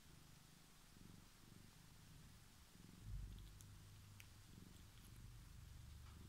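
Mother cat purring faintly while her newborn kittens nurse: a low, pulsing rumble that grows a little louder about halfway through, with a few faint clicks.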